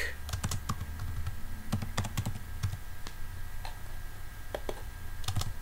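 Computer keyboard being typed on: a run of irregular key clicks as a short word is typed in, in small clusters with brief pauses between them.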